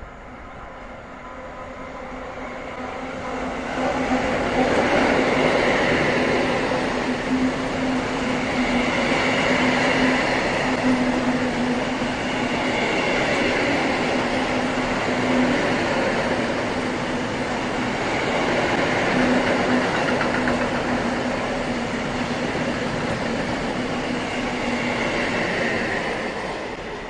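Electric-hauled freight train of hopper wagons passing on main-line track. Wheel-on-rail rumble and clatter with a steady hum builds about four seconds in as the train comes close, holds while the long string of wagons rolls by, and falls away near the end as the last wagons pass.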